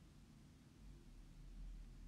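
Near silence: room tone, with a faint low rumble that swells slightly about a second in.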